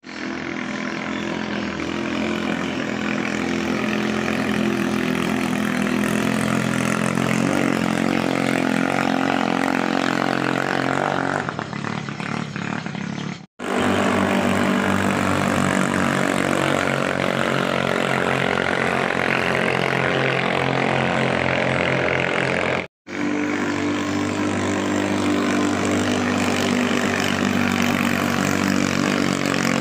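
Small single-cylinder ketinting longtail boat engine running steadily, cut off abruptly twice in the middle.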